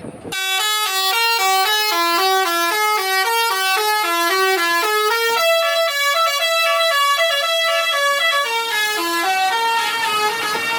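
Indonesian 'telolet' multi-tone bus horn playing a fast melody of short stepped notes, about four a second, starting suddenly.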